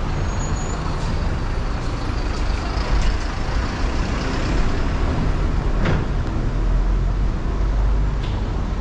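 City street traffic: a steady rumble of motor vehicles, with a deep engine rumble swelling in the second half as a heavier vehicle passes close. A short sharp sound about six seconds in.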